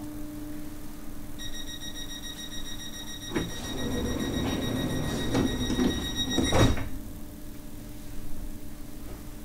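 Train's door-closing warning tone sounding high and steady for about five seconds while the sliding doors run shut, with a knock as they start and a heavier thud as they close near the end of the tone. A steady low hum from the carriage runs underneath.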